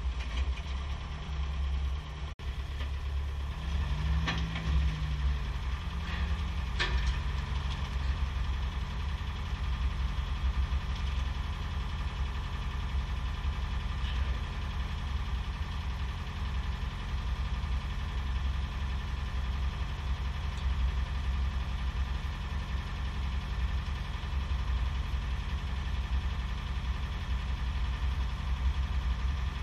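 Heavy engine idling steadily, with a brief rise and fall in pitch around four seconds in and two sharp knocks a few seconds apart.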